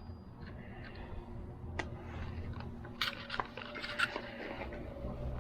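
Scattered light clicks and scrapes of hand tools and metal parts being handled as the rear axle nuts of an e-bike are worked off, with a few sharp ticks about two, three and four seconds in.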